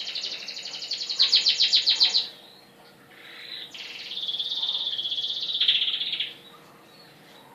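Domestic canary singing: a fast trill of rapidly repeated high notes for about two seconds, then after a short pause a longer, evenly rolling trill that ends in a burst of louder rapid notes.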